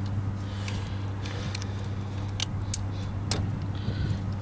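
Scattered sharp clicks of a metal hand tool working at the old plastic wiring plug on a minivan's washer fluid pump, over a steady low hum.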